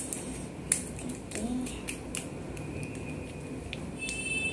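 Small scissors snipping open a plastic packet of foam clay: a few sharp snips and clicks.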